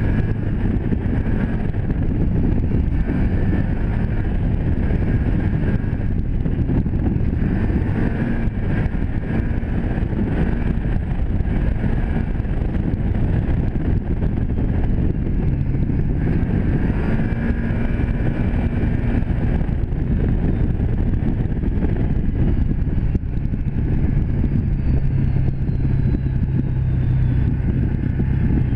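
Can-Am Commander 1000 side-by-side's V-twin engine running steadily under load on a dirt trail, heard from the driver's seat. The engine note shifts up and down a few times as the throttle changes.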